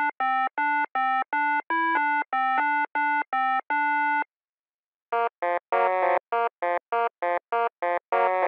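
Synthesizer music: a run of short, evenly spaced keyboard notes at about three or four a second. After a pause of about a second, a second run of notes follows in a lower, buzzier tone.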